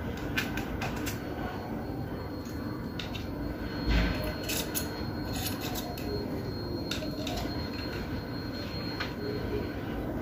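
Soldering work on a fan's push-button control board: scattered small clicks and taps of the tools and board being handled, over a steady background hum. There is a dull bump about four seconds in, and a faint high whine through most of it.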